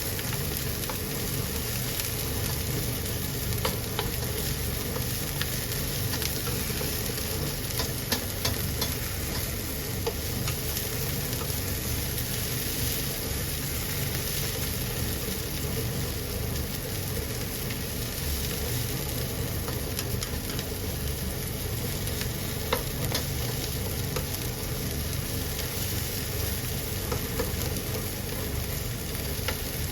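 Food sizzling in oil in a frying pan as it is stir-fried, a steady sizzle with occasional sharp clicks.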